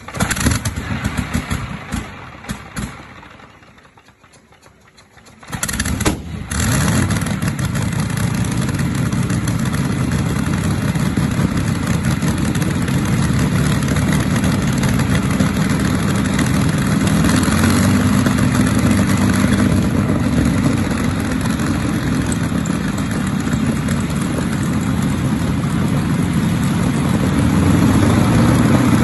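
Freshly restored Fiat AS.6 V-24 aero engine being started. A few sharp bangs come in the first three seconds, then a short lull. The engine catches about five and a half seconds in and runs steadily from then on.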